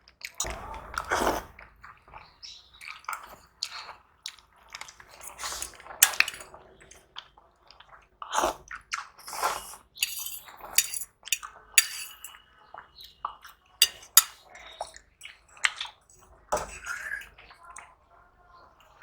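Close-miked eating sounds: chewing, with cutlery clinking and scraping on a plate in irregular short clicks.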